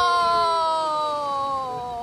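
A person's long drawn-out cry, one held "ooh" that slowly falls in pitch, let out as a big wave hits.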